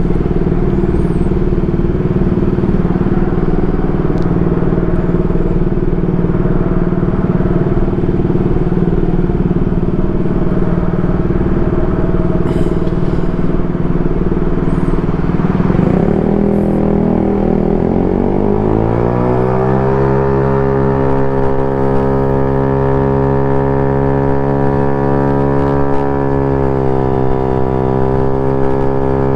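Modified Honda Ruckus scooter's engine running steadily at low speed. A little past halfway it rises in pitch over about four seconds as the scooter accelerates, then holds a steady higher pitch at cruising speed.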